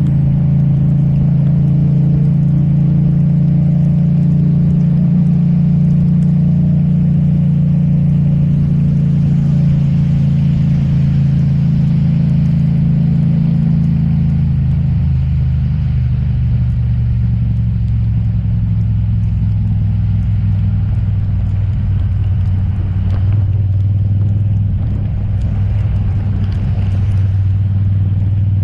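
Yamaha MT-07's 689 cc parallel-twin engine running under a steady throttle on the move, heard from the bike over wind and wet-road noise. About halfway through, the engine note drops to a lower pitch and stays there.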